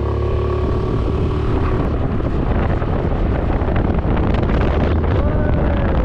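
Motorbike engine running steadily while cruising at about 50 km/h, with wind rushing over the microphone.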